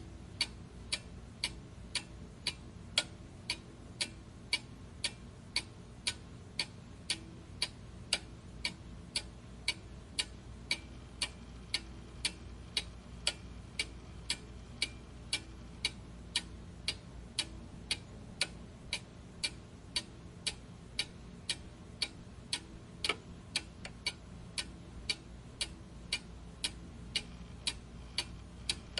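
Clock ticking steadily at about two even, sharp ticks a second, over a faint low hum.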